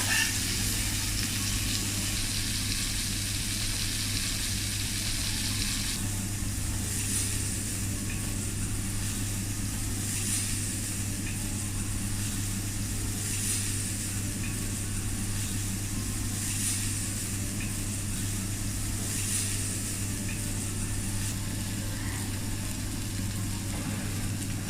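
Food sizzling on a teppanyaki griddle over a steady low hum. The sizzle eases about six seconds in, then comes back in brief hissing surges about every three seconds.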